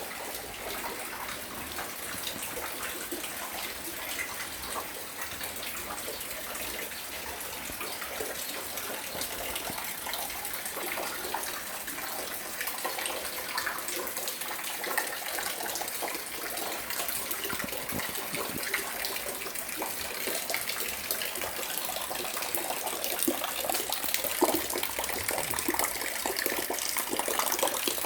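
Rain falling steadily, a dense patter of many drops, growing somewhat louder near the end.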